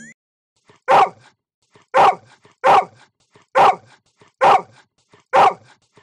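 A dog barking: six single barks at an even pace, about one a second, starting about a second in.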